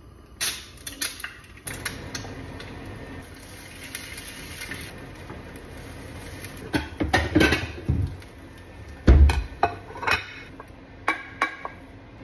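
A spatula stirring, scraping and tapping in a small frying pan of scrambled eggs over a light sizzle, with clattering as the pan is handled and a heavy knock about nine seconds in. Near the end, the eggs are scraped from the pan onto a plate.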